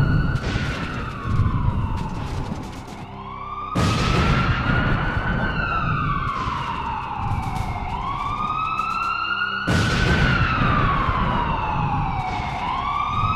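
An emergency-vehicle siren wailing: each cycle rises quickly, then falls slowly over about three seconds, about four times in all. It restarts abruptly about four and ten seconds in, and a low rumble runs underneath.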